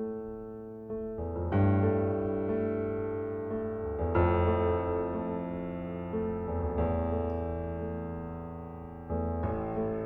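Background piano music: sustained chords struck every second or two, with notes ringing on.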